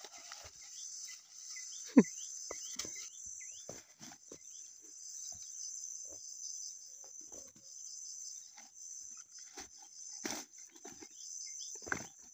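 A steady high-pitched chorus of insects runs throughout. Over it come intermittent rustling of leaves and stems and dull knocks as cassava plants are gripped and pulled from the ground, with one sharp knock about two seconds in.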